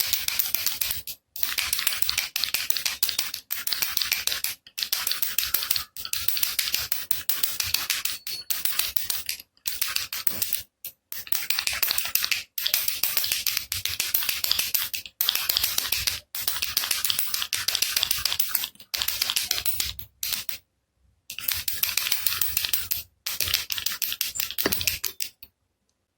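Baby rattle (jhunjhuna / kilukiluppai) shaken in short bursts of rapid bead rattling, about one burst a second with brief pauses between, stopping just before the end.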